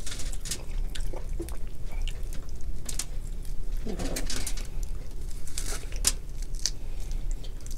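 Wet squelching and small cracks as hands pull apart boiled crab and lobster shell, with scattered sharp clicks and a short murmur of voice about four seconds in.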